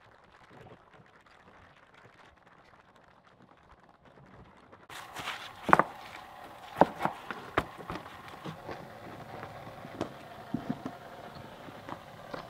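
Field stones being set by hand into a wire-mesh gabion basket: a string of sharp stone-on-stone clacks and knocks, irregularly spaced, starting about five seconds in after a few quiet seconds.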